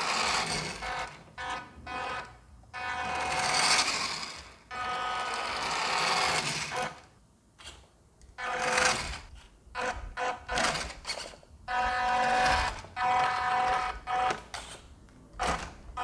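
Small electric motor and gearbox of a WPL D12 RC truck whining in repeated bursts, starting and stopping as the throttle is applied and released.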